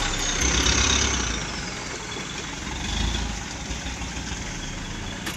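Canter truck's diesel engine running at low revs, with a high whine that slides down in pitch over the first couple of seconds.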